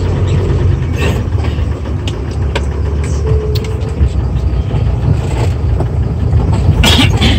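Cabin noise of a moving passenger minibus: a steady low engine and road rumble, with a few short knocks and rattles and a louder brief rattle about seven seconds in.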